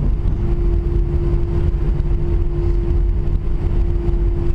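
Airbus A320-200 cabin noise: the jet engines running with a steady hum over a low rumble, heard from inside the cabin.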